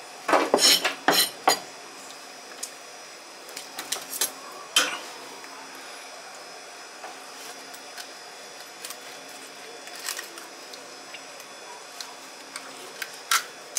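A kitchen knife and a red sea bream being handled on a plastic cutting board. A quick run of sharp knocks and clicks comes in the first second and a half as the knife is taken up and the fish turned, then scattered light clicks and scrapes follow as the blade cuts along the fish's back. A steady faint hum runs underneath.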